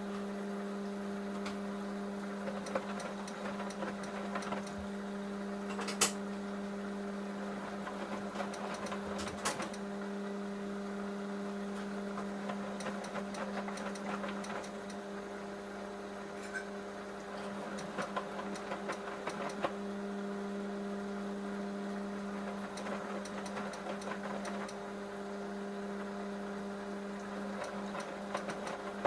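Samsung Eco Bubble washing machine running a bedding cycle: a steady motor hum with scattered light clicks, and two sharp knocks about six and nine and a half seconds in.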